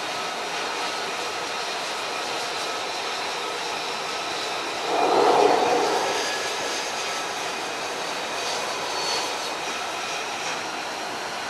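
F-35C Lightning II's single Pratt & Whitney F135 jet engine running at taxi power across a carrier flight deck: a steady jet rush with a faint high whine, swelling louder for a second or two about five seconds in.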